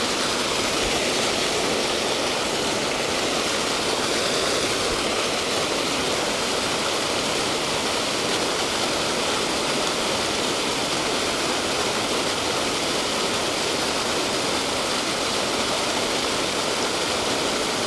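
Steady rush of water pouring from a sewage plant's spillway outlet and churning into the pool below.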